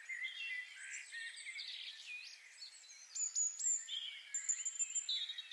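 Several songbirds singing at once: overlapping chirps, whistled phrases and quick downward-sweeping notes, with a fast trill near the end.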